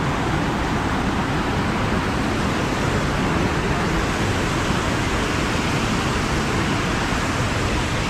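A fast, rocky burn rushing over boulders and small waterfalls: a steady, loud rush of water.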